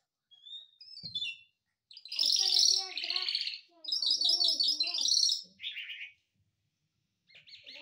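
Small songbird chirping in rapid, high twittering runs: a few light chirps at the start, two loud bursts about two and four seconds in, and a short call near six seconds.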